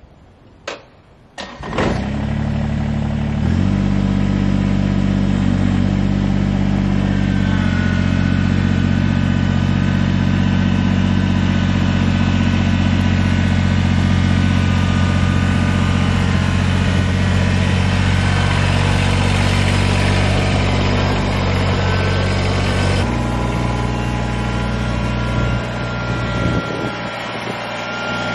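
Kubota BX2380 compact tractor's three-cylinder diesel engine starting: two short clicks, then it catches about two seconds in, revs up a second or so later and runs loudly and steadily while the tractor drives off, its note changing near the end.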